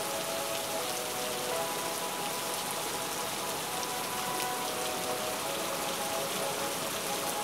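Steady rush of water pouring through a broken ceiling panel and splashing onto a flooded floor, with a few faint held tones underneath.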